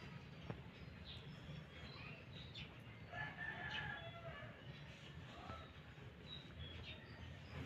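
Rooster crowing faintly about three seconds in, over low steady background noise.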